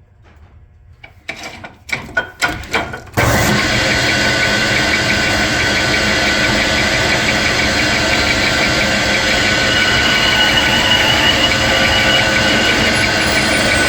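An 1890 metal lathe starting and running: a few clicks and knocks, then about three seconds in the machine comes on suddenly and runs steadily and loudly with a steady high tone over its noise.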